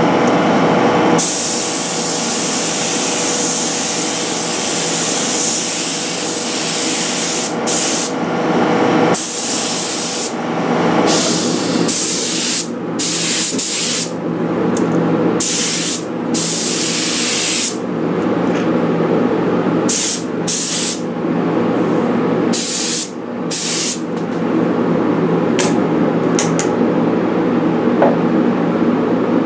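Paint spray gun spraying a sealing coat: a loud air-and-paint hiss in long passes for the first half, then in short trigger bursts with gaps. A steady hum runs underneath.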